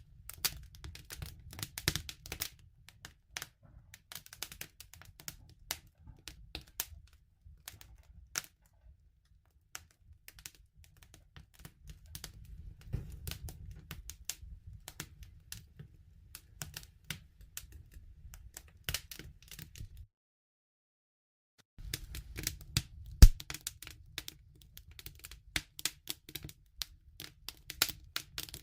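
Campfire crackling: burning wood snapping and popping in quick, irregular clicks over a low rumble of the fire. The sound drops out completely for about two seconds near the twenty-second mark, then resumes with one loud pop.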